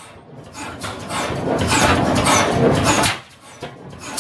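Twin-cylinder slide-valve, flame-ignition hit-and-miss gas engine running loud, with a rapid, rasping run of firing strokes that drops off near the end as it coasts, then one sharp stroke at the very end.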